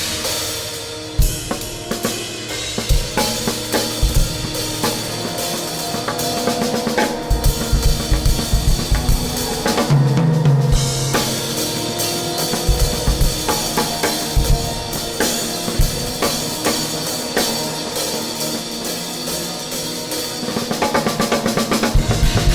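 Improvised drum kit playing: dense snare and rim hits with clusters of bass drum thumps, over a continuous cymbal wash and held droning tones.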